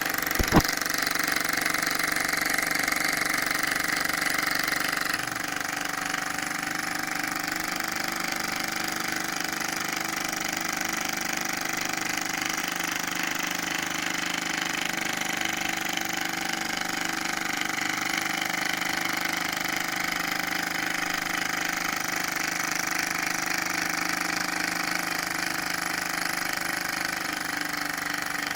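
Small model Stirling engine running with a steady, fast mechanical rattle. There is a sharp click about half a second in, and the sound drops slightly in level about five seconds in.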